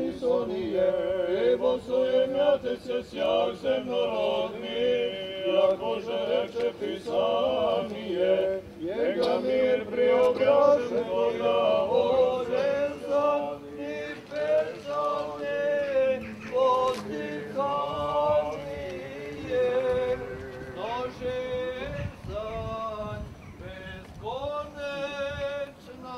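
Serbian Orthodox priests chanting the memorial service prayers in unaccompanied male voices, holding and gliding between long sung notes.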